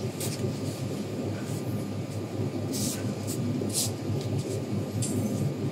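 Room tone of a large hall: a steady low rumble, with a few faint, brief noises scattered through it.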